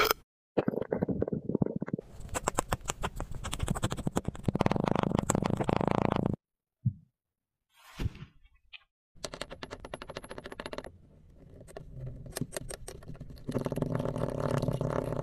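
Kinetic sand being pressed, cut and crushed: dense crunchy crackling in several separate stretches, broken by short near-silent gaps.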